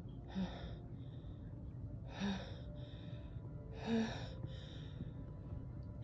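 A woman's sneeze buildup: three sharp, breathy gasping inhales about two seconds apart, each with a brief catch of voice and followed by a softer breath, as the sneeze builds but does not yet come.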